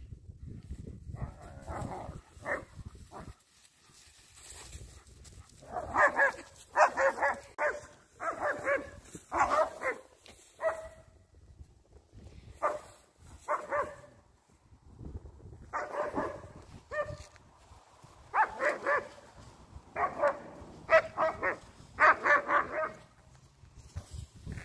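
Dogs barking in rough play, in bouts of several quick barks with short pauses between, starting about a quarter of the way in.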